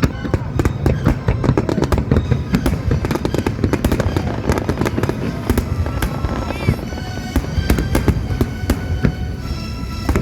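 Fireworks going off in a dense, rapid barrage of bangs and crackling, many bursts a second, with music playing along.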